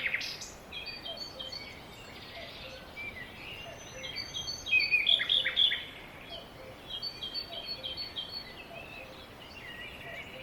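Small birds chirping and twittering in quick runs of short, high notes, busiest and loudest about halfway through, over a steady background hiss.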